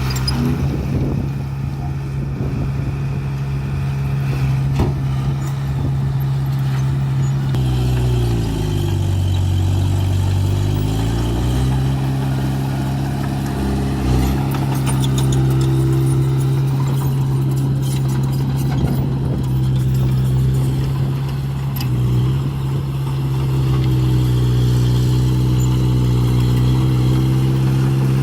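Heavy diesel engine of construction machinery running steadily. Its pitch drops and climbs back once about a third of the way through, and dips briefly again later, as the load or throttle changes.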